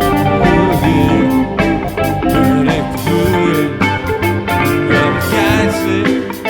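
Background music: a guitar-led, blues-style track with a steady beat, perhaps with singing.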